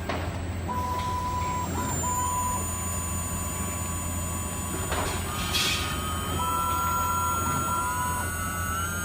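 6040 CNC router's stepper motors whining as the axes move. The tone starts and stops and steps up in pitch, over a steady low hum, with a short hiss about five seconds in.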